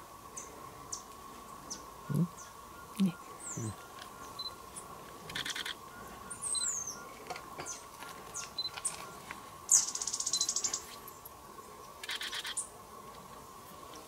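Cloud-forest birds calling: scattered short chirps and whistles, a falling whistle about six and a half seconds in, and a fast buzzy trill about ten seconds in. Three short low sounds come around two to four seconds in, over a steady faint high tone.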